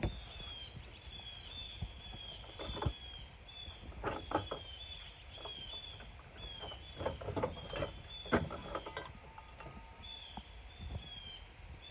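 A bird's short, high, falling chirps repeating about once or twice a second, mixed with scattered clicks and knocks of tools or parts being handled.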